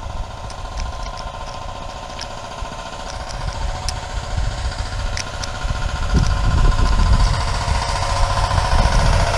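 Bicycle riding along with a steady rattling hum and wind rumbling on the microphone, which grows louder about six seconds in. Light scattered clicks in the first five seconds are a Rubik's Cube being turned one-handed.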